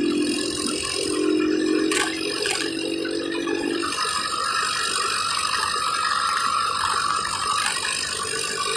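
Car cabin noise while driving: steady tyre and engine noise with the interior rattling over the road, and two sharp clicks about two seconds in.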